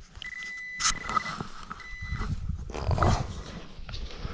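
Handheld metal-detecting pinpointer sounding a steady high alarm tone in two stretches, its signal for metal close to its tip, as it is pushed through loose sand. Near the middle the tone stops and there is a louder scraping rustle of the probe and sand. The metal turns out to be a bottle cap.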